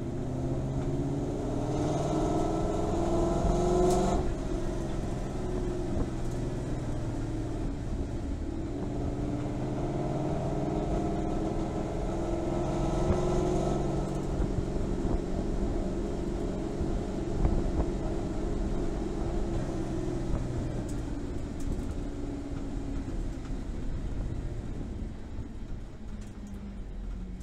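Ford Boss 302S's 5.0-litre V8 revving up in second gear twice, each pull cut off sharply as the throttle is lifted, then coasting down on engine braking to idle. The rear differential, fitted with a new ring and pinion, makes no howl on the overrun.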